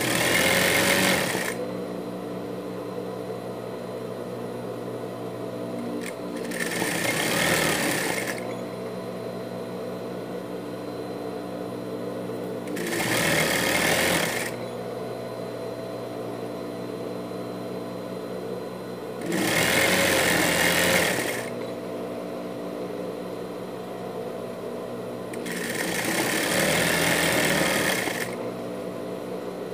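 Industrial straight-stitch sewing machine stitching in five short runs of a second or two each, with a steady hum between the runs.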